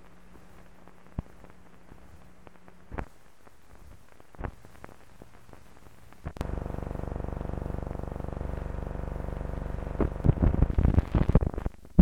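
Old optical film soundtrack running out at the film's tail: low hiss with a faint hum and scattered clicks. About six seconds in, a loud steady buzz with a rich stack of overtones sets in, and loud crackling pops break through it in the last two seconds.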